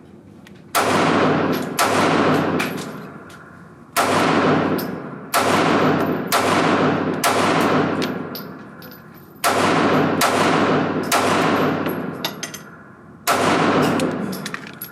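Springfield Armory Hellcat 9mm pistol firing a string of shots in a cold-start drill. The shots are loud and sharp, spaced from about half a second to a few seconds apart, and each one rings out and fades.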